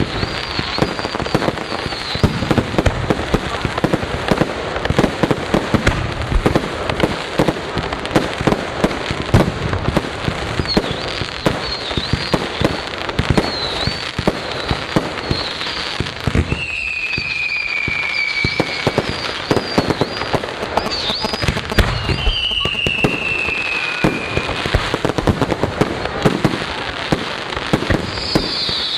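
Fireworks display: a dense, continuous barrage of bangs and crackling. Two long whistles, each falling slightly in pitch, come about two-thirds of the way through.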